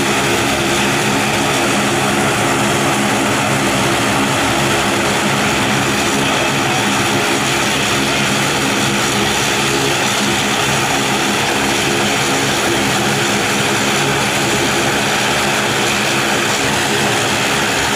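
Cessna Grand Caravan's single turboprop engine running steadily while the plane sits parked, its propeller turning: an unchanging drone of several even tones with a broad rush over it.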